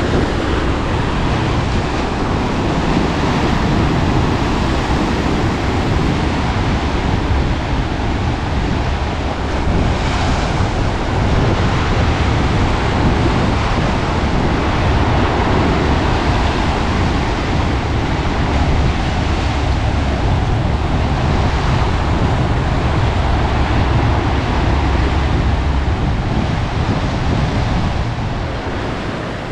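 Ocean surf washing steadily, with wind gusting over the microphone as a low rumble.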